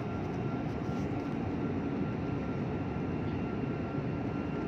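Airliner cabin noise: a steady low rumble of engines and rushing air, with a faint thin steady tone above it.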